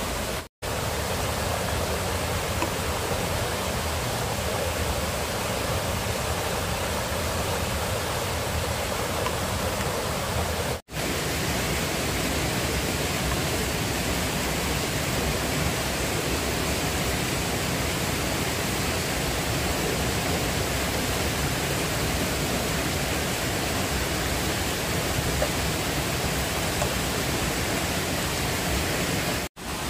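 Steady, even rushing noise with no distinct events, broken by three brief drops to silence where the recording cuts.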